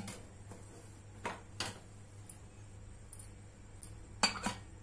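Pressure cooker whistle weight being set onto the vent pipe of a stainless steel lid: a cluster of sharp metallic clicks near the end, after a couple of faint clicks earlier on.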